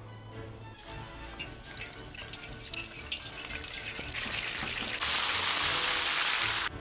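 Flour-coated octopus pieces deep-frying in hot oil: a crackling sizzle that builds, becomes a loud, steady hiss about five seconds in, then cuts off suddenly. Background music plays throughout.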